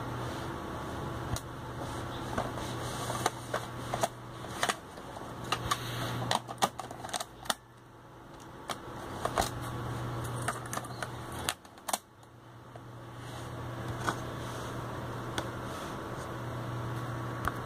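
A Pioneer DEH-2250UB car radio head unit being handled: irregular clicks and light taps of fingers and the unit's metal case and plastic faceplate, most of them in the first twelve seconds, over a steady low hum.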